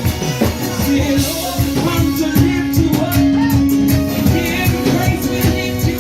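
Live worship band playing a song with drums and singing; a long note is held from about a second in until just past four seconds.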